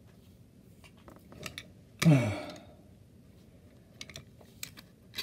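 Light clicks and taps of a small plastic toy truck being handled and pushed on carpet, with one short falling vocal groan about two seconds in.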